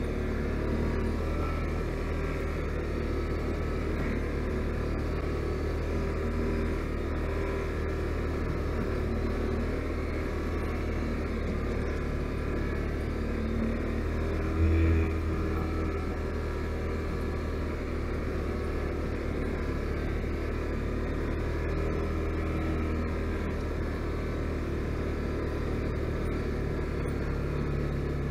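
Can-Am Outlander 570 ATV's Rotax V-twin engine running steadily under way, with a brief, louder low thump about halfway through.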